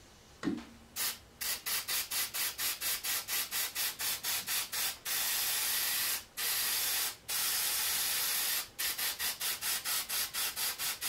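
Aerosol can of black spray paint hissing in rapid short bursts, about three or four a second, then in longer steady sprays in the middle, then short bursts again, misting a light coat onto a small turned wooden barrel to imitate years of dirt and dust.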